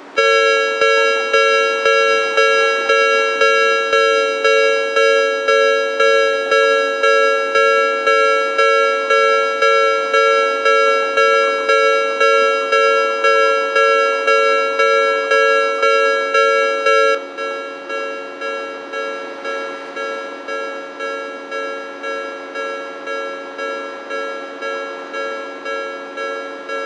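Japanese electronic level-crossing alarm on the Toden Arakawa tram line, sounding a rapid, evenly repeated bell-like ding at about two strikes a second as the barriers come down for an approaching tram. About two-thirds of the way through it drops suddenly to a quieter level and keeps ringing.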